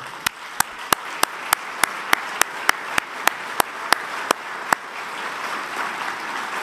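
Audience applauding, with one person's sharp hand claps close to the podium microphone standing out over it, about three a second. The close claps stop about two-thirds of the way through while the applause goes on.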